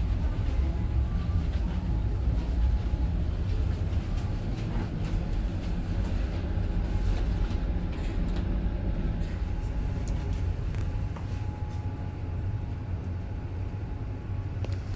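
Steady low rumble of a moving vehicle, easing a little near the end.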